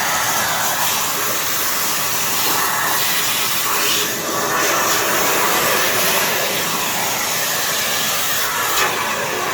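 Philips PowerPro FC9331/09 bagless vacuum cleaner, with a 900 W motor, running steadily with a continuous rush of air.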